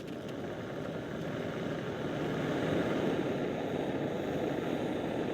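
Backpacking gas stove burner running with a steady rushing hiss, growing louder over the first couple of seconds as it is turned up, then holding steady, heating water for oatmeal.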